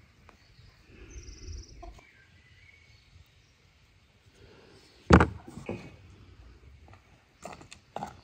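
A sudden heavy thump about five seconds in, followed by a few lighter knocks.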